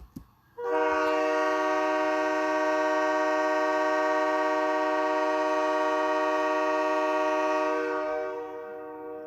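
Hockey arena goal horn, a chord horn of several pitches like a train horn, sounding one long steady blast that starts about half a second in and fades away near the end.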